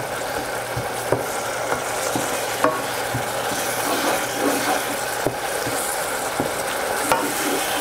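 A wooden slotted spoon stirring a wet mash of softened potato chips in a small metal saucepan, with small scraping taps against the pot. Under it runs a steady sizzling hiss from the simmering liquid.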